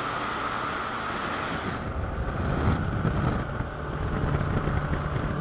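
Wind rushing over the microphone of a camera on a moving motorcycle, with the motorcycle's engine and road noise underneath. About two seconds in the high hiss drops away and a low rumble takes over.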